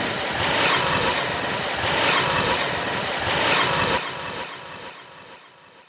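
Hero motorcycle engine running steadily as the bike rides up, then fading away over the last two seconds.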